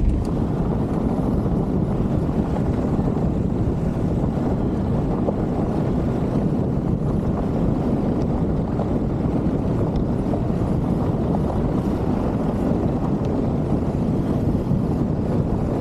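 Steady wind rush on an exterior-mounted camera's microphone, mixed with the tyre and road rumble of a Ford Ranger driving over a rough, corrugated dirt track.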